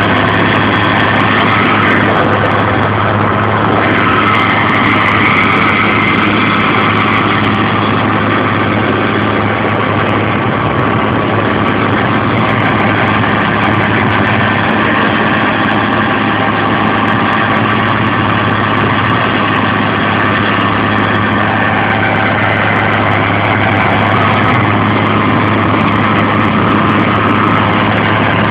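Tractor engine running steadily under load, driving a TOZAMET FG-650B soil stabilizer as it churns through soil.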